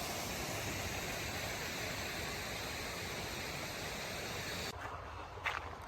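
Steady, even rushing of water that cuts off abruptly near the end, giving way to quieter surroundings with a couple of short knocks.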